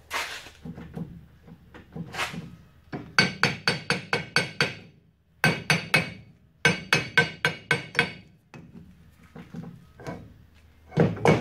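Hammer striking the flange of a pickup's rear axle shaft to drive it home into the differential. It comes in three quick runs of sharp metal-on-metal strikes, about five or six a second, each with a short ring. The shaft is being held back by a misaligned spider-gear block in the differential.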